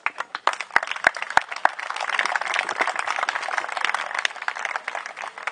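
Audience applauding. It starts as a few scattered claps, swells into steady applause about two seconds in, and thins out near the end.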